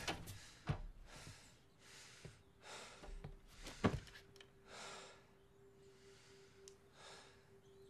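A person breathing heavily and sighing, short breaths every second or so, with soft knocks about a second in and near four seconds. A faint steady hum comes in about two and a half seconds in.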